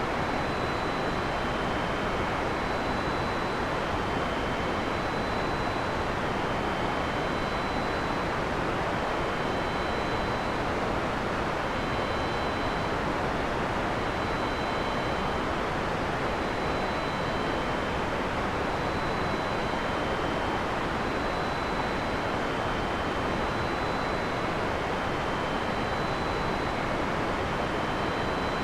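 Steady heavy rain in a forest, an even hiss that doesn't rise or fall, with no thunder. Faint short high tones repeat every second or two throughout.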